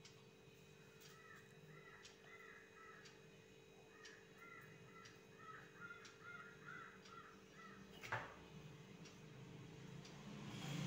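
Faint bird calls in two runs of short repeated notes, over a steady low hum, with a single knock about eight seconds in.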